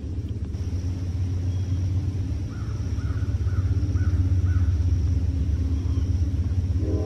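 A bird calls five times in quick succession, about two calls a second, a few seconds in, over a loud steady low rumble and a faint steady high-pitched drone.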